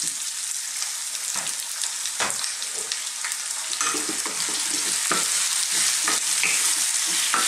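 Onions, garlic and freshly added cubed potatoes sizzling in hot oil in a nonstick wok, with the knocks and scrapes of a wooden spoon stirring them, more frequent in the second half.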